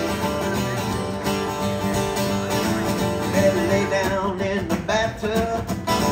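Acoustic guitar strummed steadily in a country song, with a bending, wavering melody line coming in over it about three seconds in.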